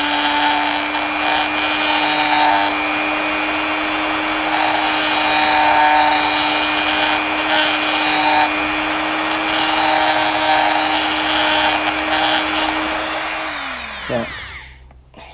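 Small handheld rotary tool running at a steady high speed, grinding into the metal of a diecast toy car's fender in repeated strokes. Near the end it is switched off and winds down with a falling pitch, followed by a few light clicks.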